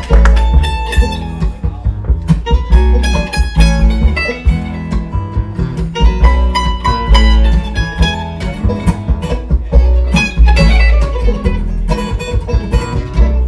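Bluegrass band playing live: fast picked mandolin notes over acoustic guitar and upright bass.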